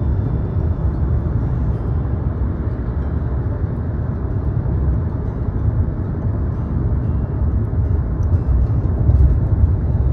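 A car driving, heard as a steady low rumble of road and engine noise.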